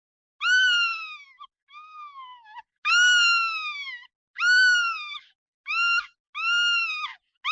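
A cat meowing over and over: about six separate high meows in quick succession, each under a second long and dropping in pitch at the end, with a quieter one about a second and a half in.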